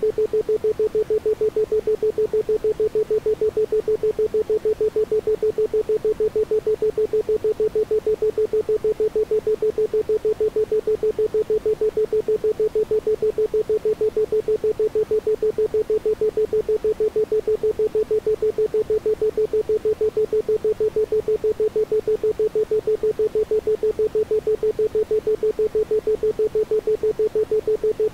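Isochronic tone: a single steady pitch near 432 Hz, pulsed on and off in a fast, even rhythm several times a second, with no background sound.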